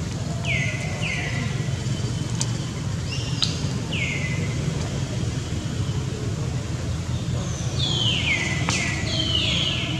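Baby monkey crying: short high-pitched cries that each fall in pitch, two near the start, one about four seconds in, and a quick run of four or five near the end, over a steady low rumble.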